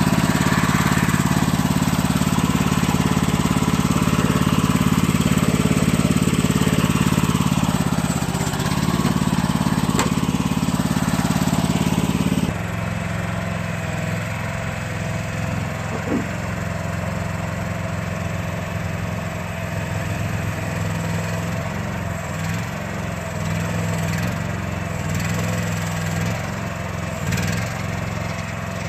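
Small engine of a towable backhoe running steadily as the backhoe is worked; about twelve seconds in the sound drops suddenly to a quieter level and carries on. A single click about ten seconds in.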